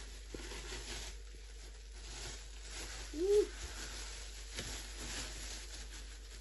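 Thin plastic wrapping crinkling and rustling in uneven waves as balls of starch fufu are peeled out of it, with a few small clicks. About three seconds in, a short hummed voice sound rises and falls.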